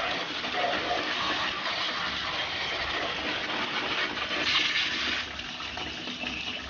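A jet of water spraying into a split air conditioner's indoor unit to wash it, the water splashing and running off into a plastic catch bag in a steady hiss.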